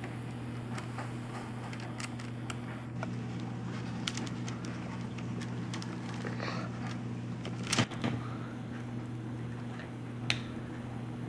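Steady low electrical hum of room tone, with scattered faint clicks and taps and a couple of sharper knocks about eight seconds in and another near the end.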